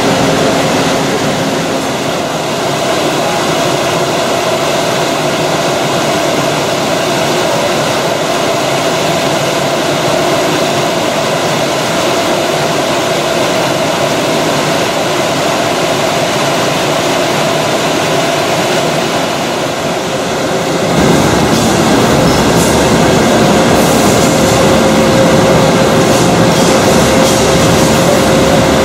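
A steel coil-processing line with a cluster roll leveler running: a steady, loud mechanical noise with a constant hum through it. About three quarters of the way through, the sound abruptly turns louder and deeper.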